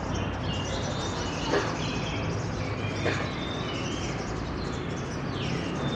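Songbird singing a quick run of short, high chirps and whistled notes over steady background noise, with two brief clicks about a second and a half and three seconds in.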